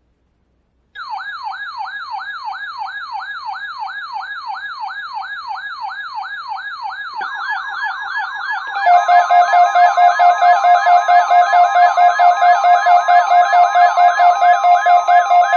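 Electronic emergency-alert alarm: a siren-like tone sweeping downward in pitch about three times a second, joined about nine seconds in by louder steady alarm tones at several pitches.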